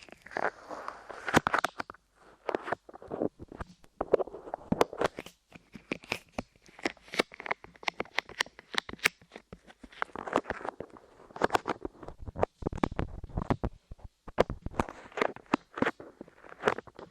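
Light modelling clay pressed and peeled against the microphone, making dense, irregular sticky crackling and clicking.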